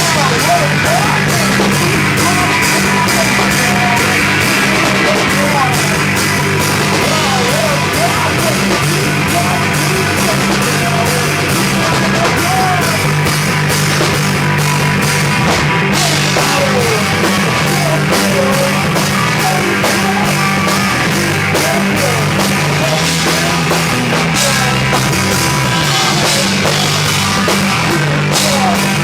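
Live rock band playing loud, in a punk or heavy rock style, with a drum kit driving the music.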